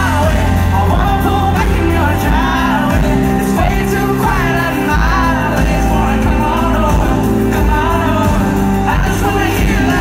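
Live band in concert: a male lead vocal singing over acoustic guitar, electric guitar, bass and drums, with a heavy, booming bass, recorded from inside the crowd.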